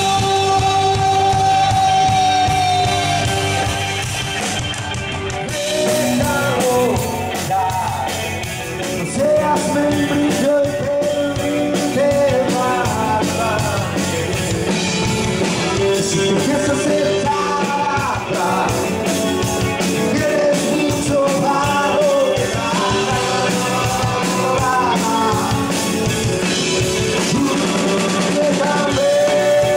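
Live band playing: drum kit, electric guitars and bass, with several voices singing long held notes over it.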